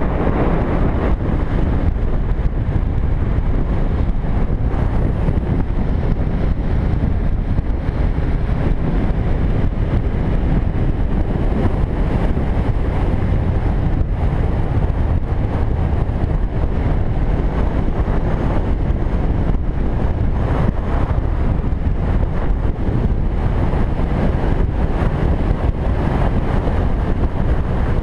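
Steady wind rushing and buffeting over the microphone of a camera on a moving cruiser motorcycle, with the motorcycle's engine and road noise running underneath.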